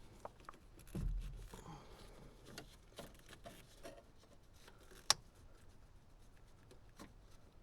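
Light clicks and taps of hand tools and small metal parts being handled, with a dull thump about a second in and a sharp click about five seconds in.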